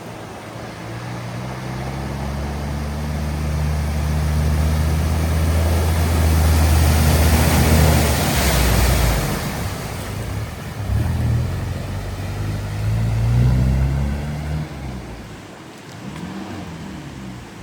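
A vehicle driving through floodwater: its engine grows louder as it approaches, a rushing hiss of spray and wash peaks about halfway through as it passes, then the engine changes pitch and fades away.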